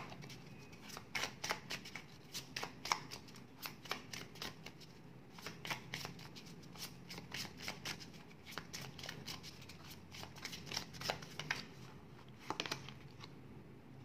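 A deck of tarot cards shuffled by hand: a long run of quick, irregular card slaps and clicks that thins out near the end.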